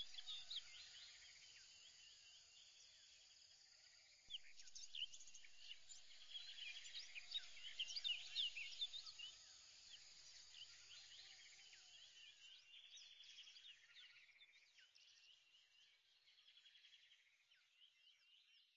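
Faint chorus of small birds chirping and twittering, busiest in the middle and thinning out towards the end before stopping abruptly.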